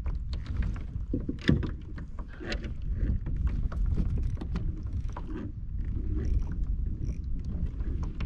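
Water splashing and lapping against a Hobie kayak's hull, with irregular small knocks and splashes over a steady low rumble of wind on the microphone.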